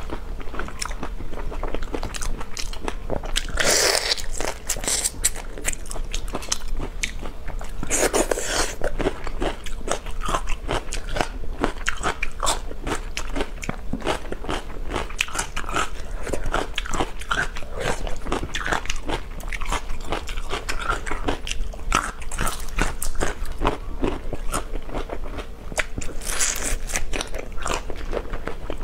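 Close-miked eating of raw marinated shrimp: continual wet chewing with many small crackly clicks, and three louder, longer slurping sucks, about four seconds in, about eight seconds in, and near the end.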